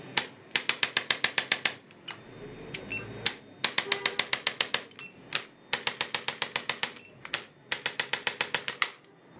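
Handheld percussive treatment instrument firing rapid mechanical clicks in four bursts of about a second each, roughly ten clicks a second, with a few single clicks in the pauses between bursts.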